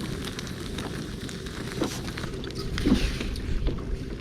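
Gear being handled and rummaged out of a boat's storage compartment: scattered clicks, taps and light knocks, a couple of them louder, over a steady low rumble.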